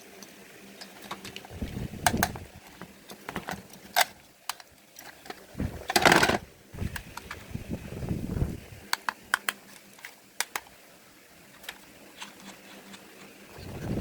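Irregular sharp clicks and taps of small hard parts being handled, with a few dull bumps and a short loud rushing scrape about six seconds in.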